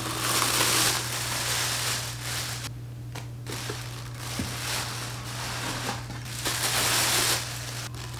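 Plastic packaging crinkling and rustling as it is handled and pulled off a new blender's motor base and out of its glass jug, in several bursts that are loudest at the start and again near the end, over a steady low hum.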